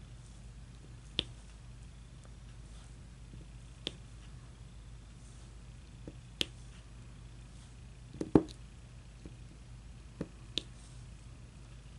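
Light sharp clicks and taps from handling painting tools, one every two or three seconds, with a louder knock about eight seconds in, over a steady low hum.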